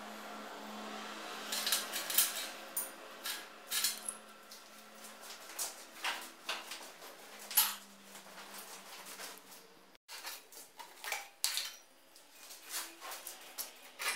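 Pieces of sheet steel clinking, knocking and scraping against each other and a steel workbench as they are handled, in irregular clusters of sharp clicks. A faint steady hum runs underneath, and the sound breaks off for an instant about ten seconds in.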